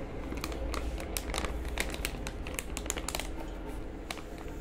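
Plastic packaging pouch crinkling as it is handled, with many short, irregular crackles.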